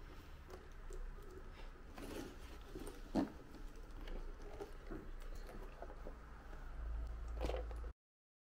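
A leather handbag being handled and opened: its strap pulled from the buckle and the flap lifted, with small scuffs, rustles and clicks and one sharper knock about three seconds in. The sound cuts off abruptly near the end.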